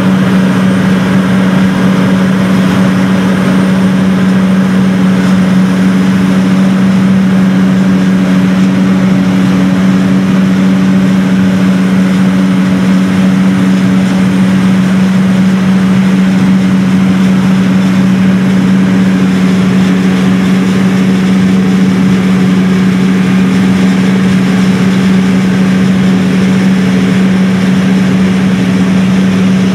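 John Deere self-propelled forage harvester chopping maize for silage, its engine and cutterhead running under load in a loud, steady hum that does not change.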